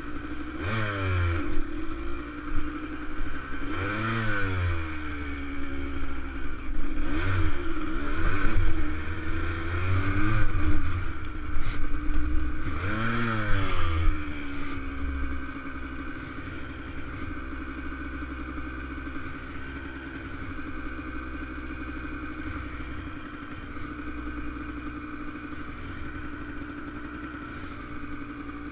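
A dirt bike engine revving hard and falling back several times as it climbs a rough, rocky trail. About halfway through it settles to a steady low running.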